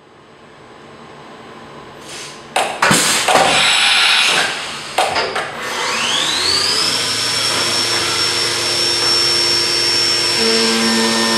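Leadwell V30i CNC machining centre: a few knocks and bursts of hiss, then the spindle spins up with a rising whine about six seconds in and settles to a steady high whine over the hiss of flood coolant. Near the end lower tones join as the end mill starts rough-cutting the brass bar.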